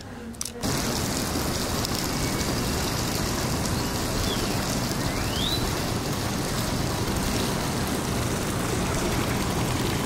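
Steady, even rush of running water. A short rising whistle comes about five seconds in.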